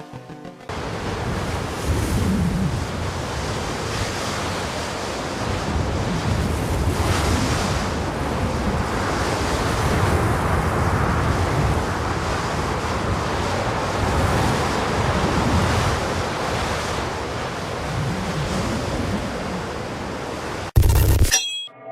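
Steady rushing noise that swells and eases slowly, a surf-like nature ambience sound effect, cut off near the end by a brief loud burst.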